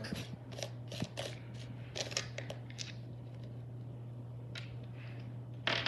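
Small plastic polyhedral dice clicking and tapping as they are set down on a paper rule book and picked up by hand: scattered light clicks, most in the first few seconds and a couple more near the end, over a steady low hum.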